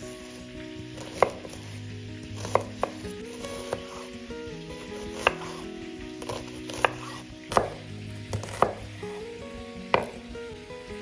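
Knife chopping a red onion on a bamboo cutting board: sharp, irregular knocks of the blade hitting the board, about one a second, some in quick pairs.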